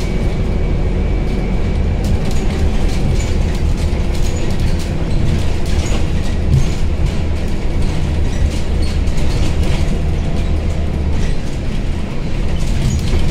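Scania Citywide 12LF CNG city bus on the move, heard from the passenger cabin: the steady low rumble of its Scania OC09 five-cylinder gas engine and road noise, with frequent rattles and clicks from the interior fittings.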